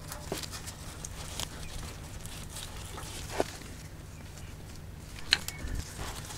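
Faint scattered taps and rustles of a gloved hand pressing exhaust repair paste around an exhaust pipe flange, with two slightly louder clicks, over a low steady hum.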